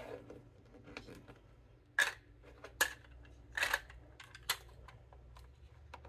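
Small hard plastic clicks as translucent plastic blast-effect pieces are set into the blue plastic storage bin of a Transformers toy trailer: four sharp clicks, roughly one a second, with fainter handling ticks between them.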